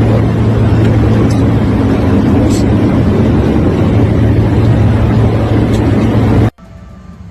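Steady loud cabin noise of a private jet in flight: a low engine hum under a wide rush of air. It cuts off suddenly about six and a half seconds in, giving way to a much quieter background.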